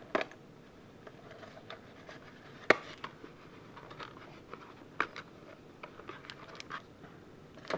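Hands opening a cardboard trading-card hanger box and sliding out the stack of cards: scattered sharp clicks and taps of the cardboard, the loudest about two and a half seconds in, with light rubbing and scraping between.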